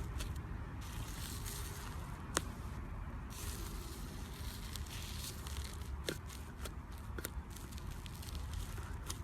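Slime being squished and stretched by hand, with sticky crackling and a few sharp pops, the loudest about two seconds in.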